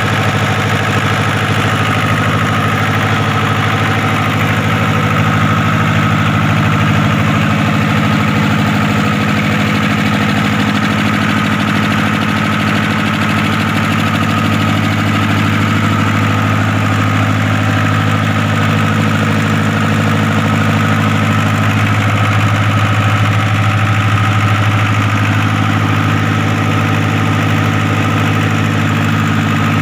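Freshly overhauled Kirloskar HA294 diesel engine running steadily at a constant speed, a strong even hum with no change in pitch or load.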